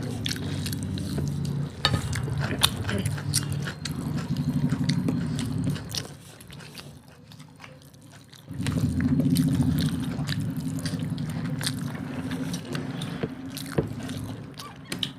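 Mouth sounds of eating rice and mutton curry: chewing with small wet clicks and smacks. A low rumble of chewing runs through it and drops away for a couple of seconds just past the middle.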